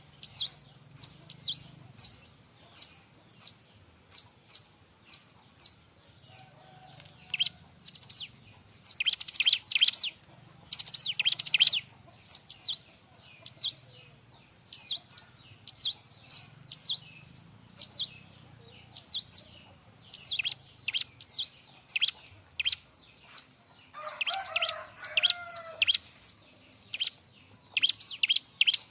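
Bar-winged prinia (ciblek) calling: a run of sharp, high chirps, about one or two a second, broken twice by bursts of rapid chattering, about a third of the way in and again near the end.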